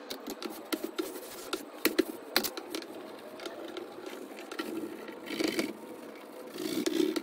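A dark drawing stick scratching and scraping over a large white drawing panel in quick strokes, with sharp taps as it strikes the surface, and a burst of fast scribbling near the end.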